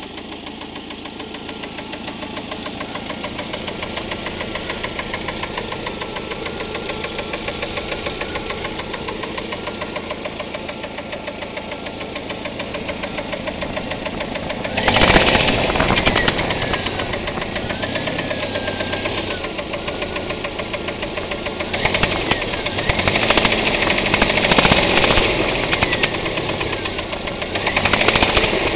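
2.5-litre Jeep engine idling with a rapid, even knock, then revved up and down several times from about halfway through; the owner asks whether it is an engine knock.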